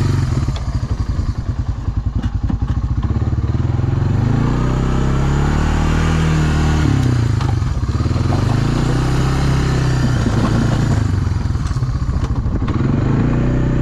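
Single-cylinder engine of a 1999 Honda FourTrax 300 4x4 ATV being ridden, running low and choppy near the start, then its pitch rising and falling several times as the throttle is opened and eased off.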